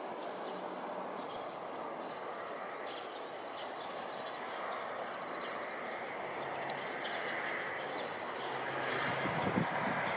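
Steady outdoor rushing noise that slowly grows louder, with scattered short high ticks and a faint low hum in the second half.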